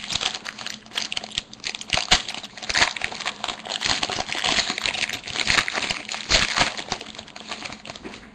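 Hockey card pack wrapper crinkling and rustling as the pack is opened and the cards are pulled out, with many sharp crackles and snaps. It dies down near the end.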